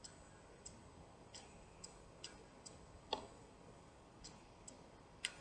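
Near silence with faint, unevenly spaced clicks, about ten of them, over low room hiss; one sharper click about three seconds in and another near the end.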